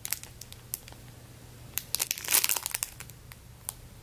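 Clear plastic packaging bag crinkling as it is handled with a squishy toy inside; scattered crackles, with the loudest cluster a little past halfway.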